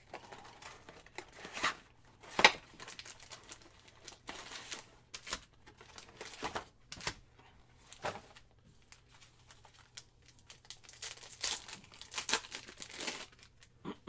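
Foil trading-card packs and their cardboard box being handled: wrappers crinkling and a foil pack torn open in a run of irregular sharp crackles, the loudest about two and a half seconds in.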